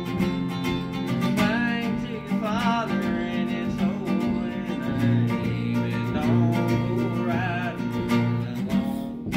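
Acoustic guitar strummed in steady chords while a young man sings with it.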